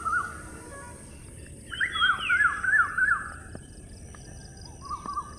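Birds chirping in quick runs of short up-and-down notes, loudest about two to three seconds in, with a steady high hiss underneath.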